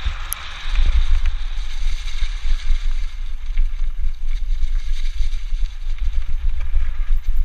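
Wind buffeting the camera microphone as a mountain bike rolls fast down a gravel forest track, a gusting low rumble with scattered small rattles and ticks from the bike and tyres on the loose surface.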